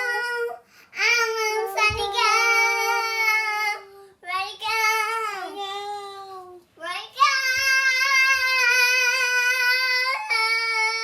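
A child singing loudly in long, held high notes, in several phrases with short breaks between them.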